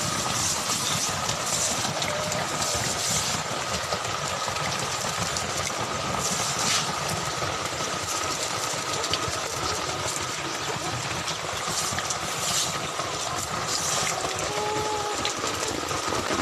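Heavy hail and rain pouring down in a dense, steady rush, swelling in brief surges every few seconds.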